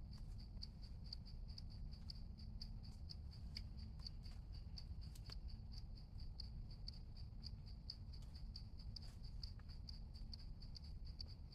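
An insect chirping in an even, high-pitched pulse several times a second, with scattered faint clicks and taps over a low background rumble.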